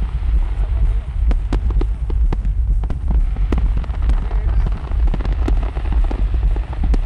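Fireworks display: a dense run of sharp bangs and crackles, several a second, over a continuous low rumble.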